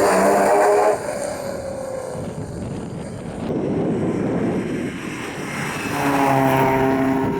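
Rally car engines driven hard on a stage. A loud engine note cuts back about a second in, leaving a quieter stretch of engine and road noise. Around six seconds in, an engine is heard pulling hard again at high revs.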